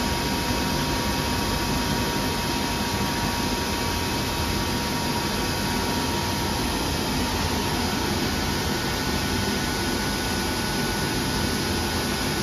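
DECKEL MAHO DMU 125 P hi-dyn machining center powered up and running: a steady mechanical whir with a thin high whine over it, unchanging throughout.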